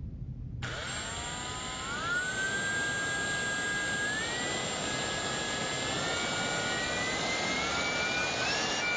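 A power tool, most likely an electric drill, starts suddenly and runs under load. Its whine climbs in pitch in several steps.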